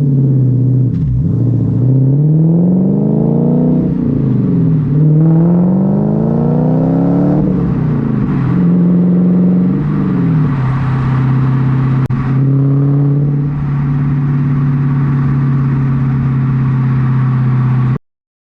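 Supercharged Lexus GS400 1UZ-FE V8 exhaust while driving. The engine note climbs in pitch under acceleration three times, dropping at each gear change, then settles into a steady drone from about ten seconds in. It cuts off suddenly near the end.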